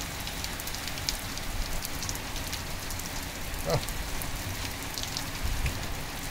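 Heavy rain pouring down steadily, with many scattered drip ticks. A brief low sound stands out about four seconds in.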